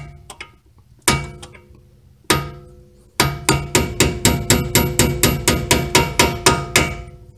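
Hammer striking a punch to drive the pad-retaining pin into a Mercedes S550's front brake caliper: metal-on-metal hits that ring. Three single hits about a second apart, then a fast run of about five or six taps a second that stops near the end, by which point the pin is in.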